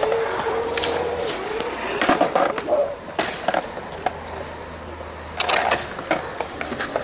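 Skateboard wheels rolling on concrete, the hum fading about a second in, followed by a series of sharp clacks of boards striking the ground.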